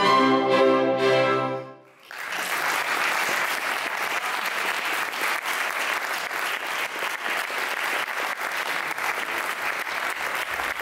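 A chamber orchestra holds a final chord that cuts off about two seconds in, followed by steady audience applause.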